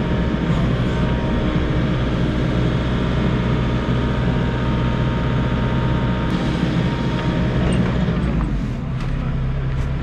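Volvo EC60E mini excavator's diesel engine and hydraulics running steadily as the arm and rotating link work a concrete block into place. About eight and a half seconds in, the note falls and settles to a lower, steadier, slightly quieter run.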